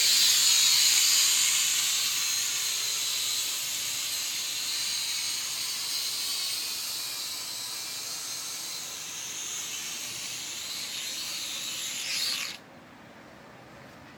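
Small toy quadcopter drone's propellers whining, loudest at lift-off and fading as it flies away. Near the end the motors stop suddenly as it comes down hard on the grass.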